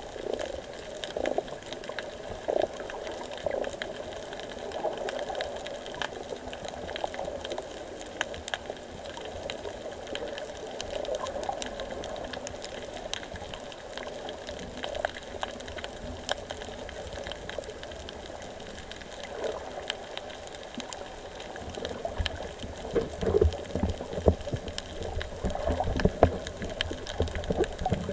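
Underwater water noise picked up by a submerged camera: a steady muffled wash with bubbling and many faint clicks. From about two-thirds of the way in, louder low bumps and surges join it.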